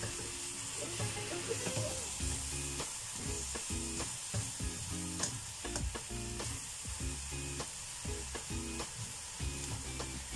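Bok choy and fish balls sizzling in a wok over a gas flame, with a steady hiss, while a spatula stirs and tosses them, knocking and scraping against the wok in frequent short clicks.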